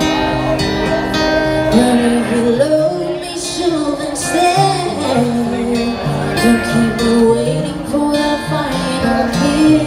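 A solo singer performing live with an acoustic guitar, the voice carrying the melody over the guitar's held chords.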